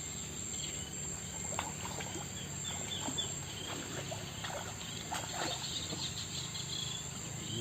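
Steady high-pitched drone of insects, such as crickets or cicadas, with scattered light clicks and knocks and faint short high chirps over it.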